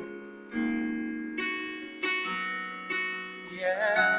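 Instrumental accompaniment of a worship song: sustained chords struck about five times, each ringing and slowly fading. Near the end, a singer comes in with a wavering held note.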